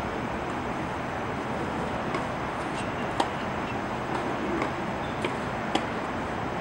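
Tennis rally practice: sharp pops of a tennis ball struck by racket strings, the loudest about three seconds in and again near the end, with fainter pops between them. A steady outdoor rush of background noise lies under them.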